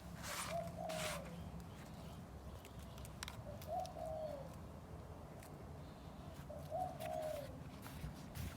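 A dove cooing: three short, low, falling coos, each about half a second long and about three seconds apart, with scattered faint clicks in between.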